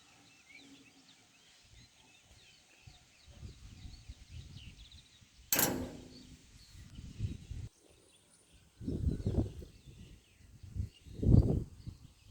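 Birds chirping faintly outdoors, broken by several loud low rumbling bursts, the loudest near the end, and one sharp click about halfway through.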